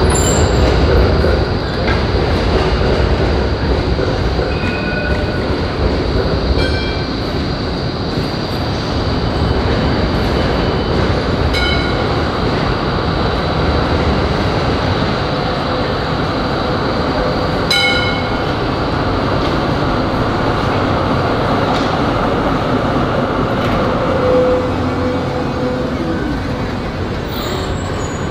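Electric trams running on street track: a steady low rumble of wheels on rail, with a few short high-pitched squeals or rings now and then as a tram draws in close.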